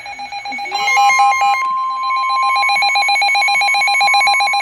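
Emergency Alert System alert tones announcing a severe thunderstorm warning: steady electronic tones joined about a second in by a short burst of warbling high tones, then a steady tone near 1 kHz with a second tone beeping rapidly over it.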